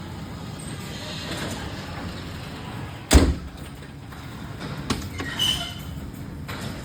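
A door shutting with one heavy thump about three seconds in, over a steady low rumble, with a few lighter clicks and knocks after it.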